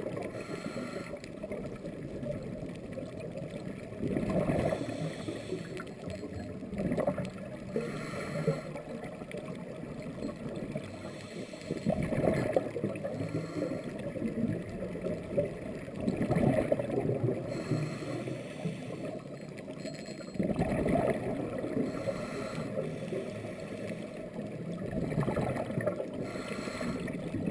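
Underwater sound of a scuba diver breathing through a regulator: a steady muffled low rush, with louder gurgling bursts of exhaled bubbles about every four seconds.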